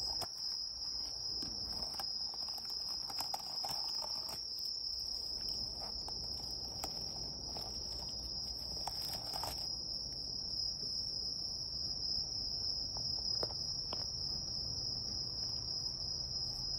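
Night insects trilling in one steady, high-pitched, unbroken chorus. Close rustles and soft taps come and go over roughly the first half, as a cat noses and rubs against the phone.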